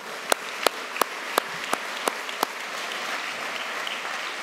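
Audience in a large hall applauding. A few sharp, evenly spaced claps, about three a second, stand out over the crowd for the first two and a half seconds.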